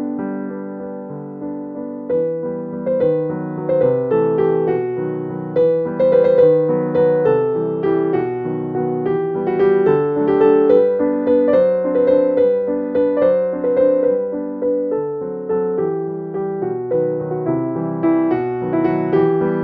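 Background music: a gentle piano melody played over steady chords.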